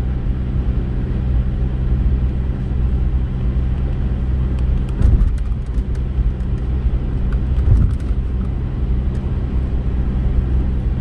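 Car driving on a wet road, heard from inside the cabin: a steady hum of engine and tyres, with a couple of louder bumps about five and eight seconds in.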